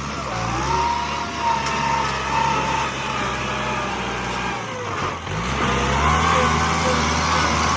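Bulldozer's diesel engine running under load, dropping in revs about five seconds in and then revving back up, with a wavering high squeal over it.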